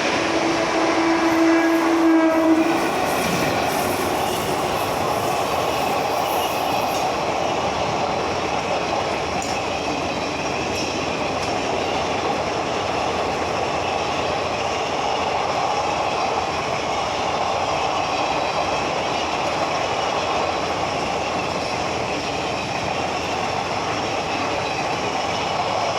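Indian Railways express train passing close by: a horn sounds for about two and a half seconds at the start, then the steady rumble and clatter of the coaches rolling over the track.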